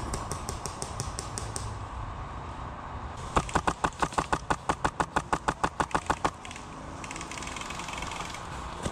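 Airsoft rifle firing a long full-auto burst of sharp, evenly spaced shots, about eight a second for three seconds, starting about three seconds in. A fainter rapid burst of shots is heard in the first second and a half.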